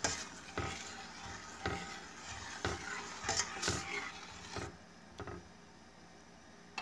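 A metal spoon stirring pastry cream in a saucepan on the heat, knocking and scraping against the pot in quick irregular strokes. The strokes stop about five seconds in. Constant stirring like this keeps the egg yolks from curdling into lumps while the cream thickens.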